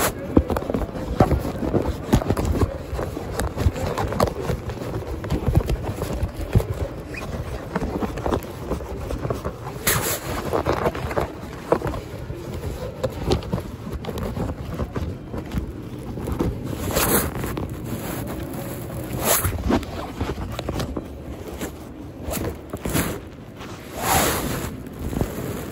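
Rustling, scraping and small knocks of a camera being handled with its lens covered, close to the microphone, with a few louder scrapes about 10, 17, 19 and 24 seconds in.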